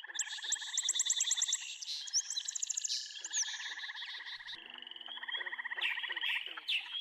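Birds chirping in rapid series of high notes over a continuous fast pulsing trill. A few low steady tones join about halfway through.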